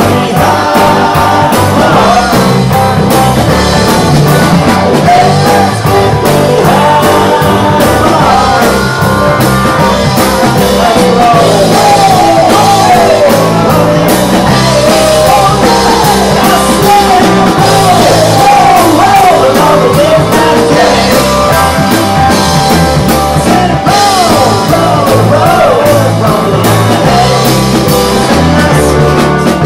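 A rock and roll band playing live: electric guitars, bass, keyboard and drums with singing, and a lead line bending in pitch through the middle.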